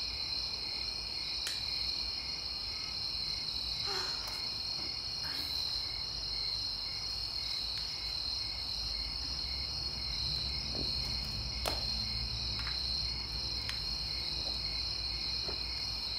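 Insects chirping in a steady high trill, with a fainter pulsing note about twice a second.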